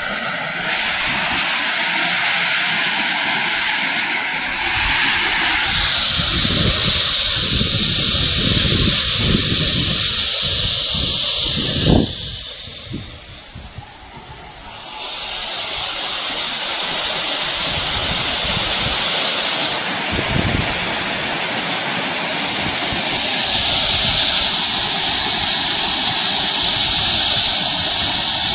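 Wind rushing over the microphone of a moving bicycle: a steady hiss over an uneven low buffeting. It gets louder about five seconds in and dips briefly around the middle.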